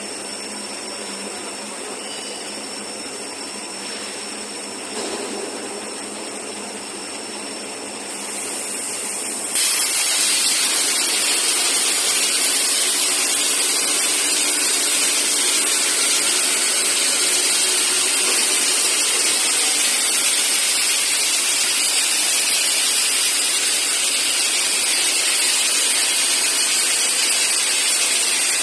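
Cutting torch of a CNC beveling cutting machine: a quieter steady machine noise, then about ten seconds in a loud steady hiss starts suddenly and holds as the torch cuts.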